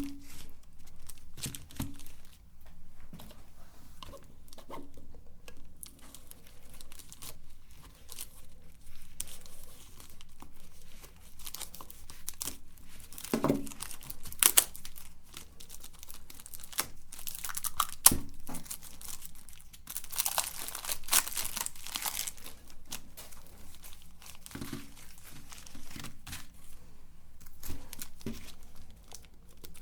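Plastic candy wrappers crinkling and tearing in irregular bursts, as chocolate bars are unwrapped by hand, with a longer tearing stretch about two thirds of the way through.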